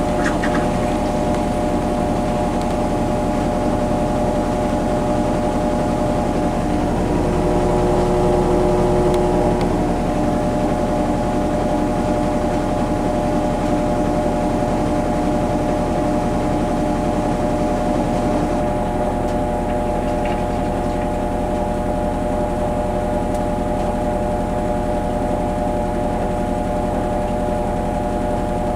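Kenmore Series 500 high-efficiency washing machine spinning: a steady motor whine of several held tones over a low drum rumble. About two-thirds of the way through, one lower tone drops out and the hiss above it thins.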